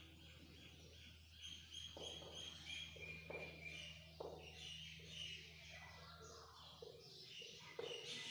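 Whiteboard marker writing a word: a string of faint strokes, with high thin squeaks from the felt tip in the first half, over a low steady hum.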